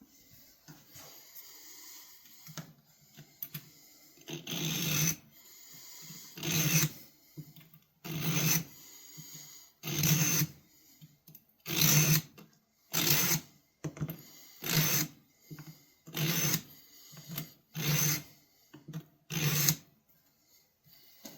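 Steel pocket-knife blade being drawn across a sharpener by hand, about ten long scraping strokes, one every second and a half to two seconds, after a few lighter ones at the start.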